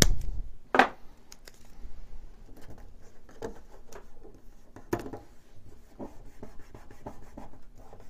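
Cables being handled and tucked inside a 3D printer's metal base: scratching and rubbing, with a sharp click about a second in and another near five seconds.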